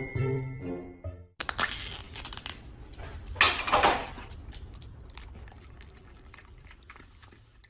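Music ends about a second in, then crinkling and tearing of a plastic yogurt cup's lid being peeled and handled, loudest in two rustly swells, followed by a dog licking yogurt from the cup with small fading clicks and smacks.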